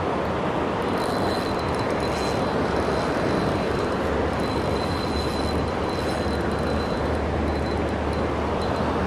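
Steady rush of river water flowing over a rocky riffle.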